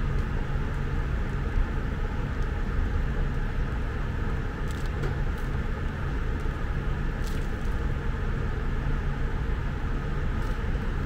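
Steady low background rumble, with a few faint clicks.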